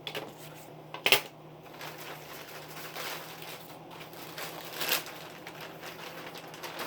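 Metal belt buckle clinking as the belt is handled: a sharp clink about a second in and another near five seconds, with softer handling noise between.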